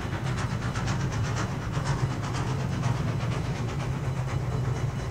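Rivarossi 141 R model steam locomotive and its freight wagons running along model railway track: a steady low motor hum with quick, regular clicking and hiss from the wheels on the rails.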